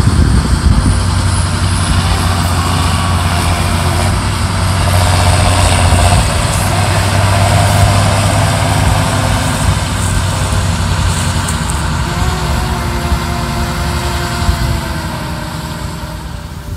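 John Deere tractor engine running as it drives past pulling a tipping trailer over stubble, louder as it comes close about halfway and slowly fading toward the end.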